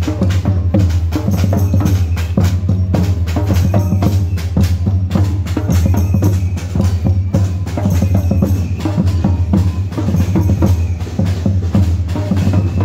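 Several samba surdo bass drums beaten with felt mallets by drummers on the move, playing a steady, continuous rhythm of deep drum strokes.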